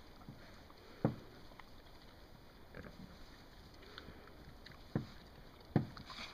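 Domestic pigs rooting and feeding in hay, with a soft rustle under three short, low grunts: one about a second in and two close together near the end.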